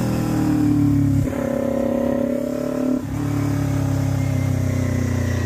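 Motorcycle engine running as the bike is ridden, with the engine note changing abruptly twice, about a second in and again about three seconds in.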